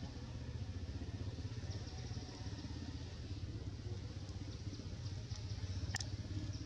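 A steady low rumble, with one sharp click about six seconds in.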